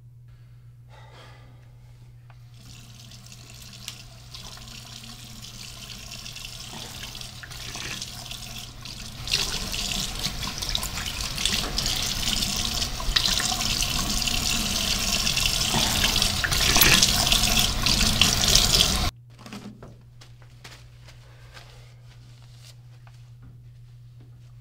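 A rushing, water-like noise that swells slowly over several seconds, grows much louder about halfway through, then cuts off abruptly, over a steady low hum.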